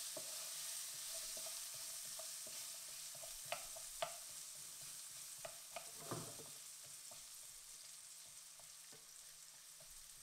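Diced potatoes sizzling in hot vegetable oil in a pan while being stirred with a wooden spoon, which knocks against the pan a few times around the middle. The sizzle gradually gets quieter.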